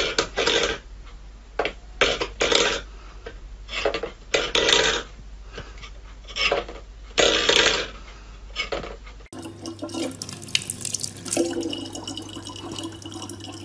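Water splashing in irregular bursts, then, after a cut, water running more quietly over a steady low hum.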